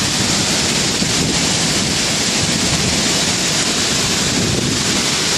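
Heavy hurricane rain and wind, a loud steady rush, with wind buffeting the microphone.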